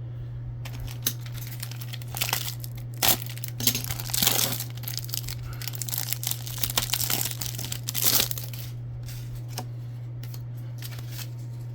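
A trading-card pack wrapper being torn open and crinkled: a run of short, irregular rips and rustles, loudest around four and eight seconds in.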